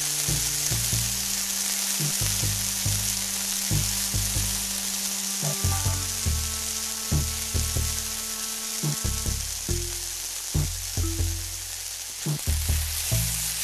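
Chopped onions frying in hot oil in a wok, with a loud, steady sizzle. A background music track with a steady beat plays underneath.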